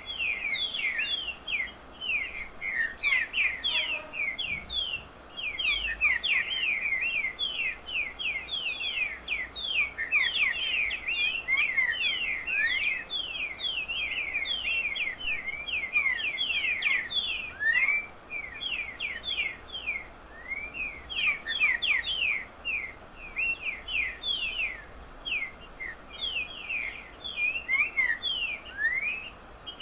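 Picharro singing: a long, dense run of quick, high chirps, several a second, with only brief pauses.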